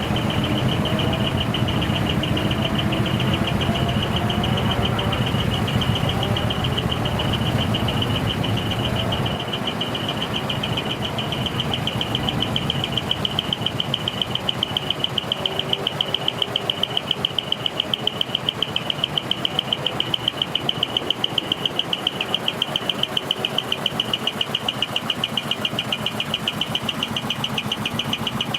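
Truck engine running, with a steady high whine over it; about a third of the way in the low rumble drops away and a regular pulsing sets in.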